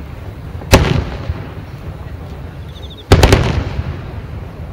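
Large aerial firework shells bursting: a loud boom about a second in and another, a quick double report, a little after three seconds, each rolling on with a long echo.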